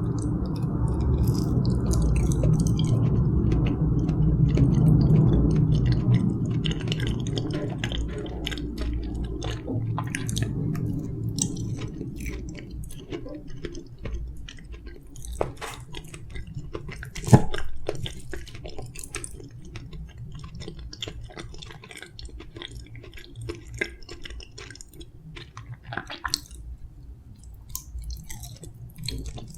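Close-up chewing and mouth sounds of someone eating soft steamed kabocha (sweet pumpkin): small wet clicks and squishes throughout. A low rumble of construction noise runs under the first twelve seconds or so, then fades. There is a single sharp knock about seventeen seconds in.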